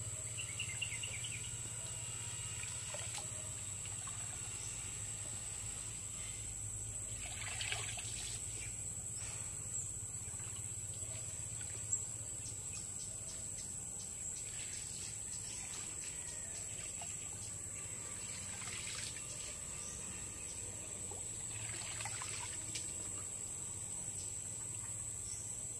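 Shallow pond water sloshing and splashing softly now and then as a person wades and drags a long pole through it, over a steady high-pitched insect drone. A few bird chirps near the start.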